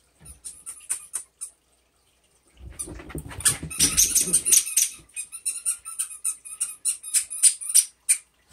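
A freshly bathed dog in a post-bath frenzy, scrabbling and rubbing on carpet: quick scratching clicks, with a heavier burst of scuffling and thumping about 3 to 5 seconds in.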